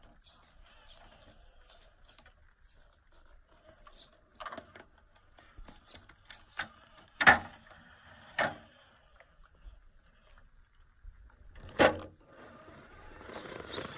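Element RC scale rock crawler clambering over boulders: scattered small clicks and knocks of tyres and chassis against the stone, with sharp louder knocks about seven, eight and a half and twelve seconds in, and a rising scraping rustle near the end.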